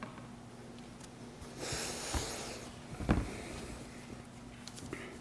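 Faint handling noise at a pulpit microphone: a brief soft hiss about two seconds in, then a soft thump about a second later as the minister moves his papers and hands on the lectern, over a faint steady electrical hum.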